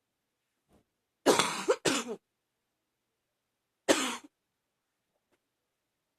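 A woman coughing: two coughs in quick succession, then a single cough a couple of seconds later. It is a morning cough that she puts down to allergies.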